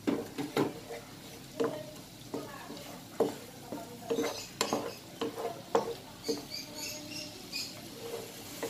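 Wooden spatula stirring and scraping around a nonstick frying pan, in irregular strokes, over the sizzle of minced garlic frying in melted butter and oil as it is sautéed toward golden brown.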